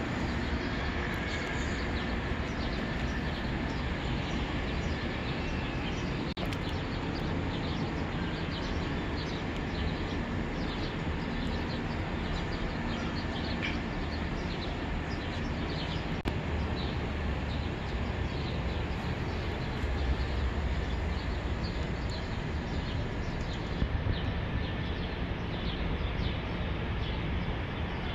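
Steady outdoor background noise of wind and distant traffic, with scattered faint high chirps, as heard from a high-rise balcony.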